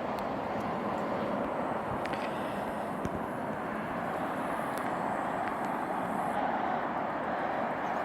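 Steady outdoor background rush, an even noise with no clear single source and a few faint ticks.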